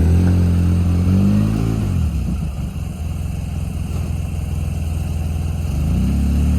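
Polaris utility vehicle's engine running; its pitch drops about two seconds in and climbs again near the end as the engine is throttled down and back up.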